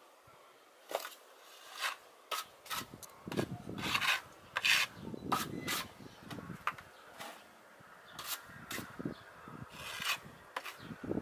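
Plastering trowel scraping across a wall as it spreads wet stucco, in a string of short, irregular strokes.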